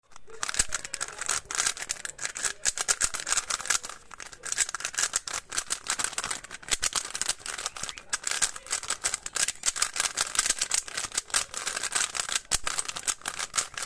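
Rubik's cube being turned rapidly: a dense run of plastic clicks and clacks as the layers snap past each other, with a brief lull about four seconds in.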